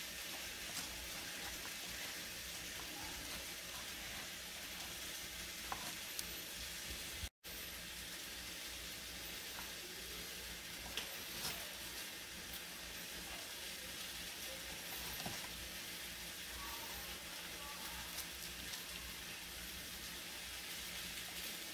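Faint steady sizzling of tomatoes and a chile toasting in a frying pan, with a few soft crackles from gloved hands crumbling queso fresco. The sound drops out for an instant about seven seconds in.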